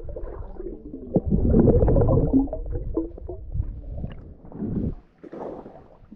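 Muffled underwater rumbling and gurgling of moving water around a camera held under the surface by a snorkeller, with a few knocks, dropping away about five seconds in.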